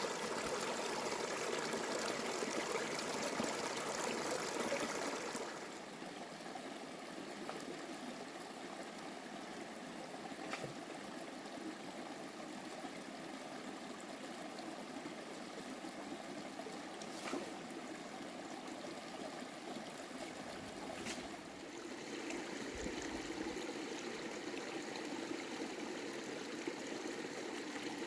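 Steady rushing of a flowing stream, a step quieter about five seconds in, with a few faint clicks later on.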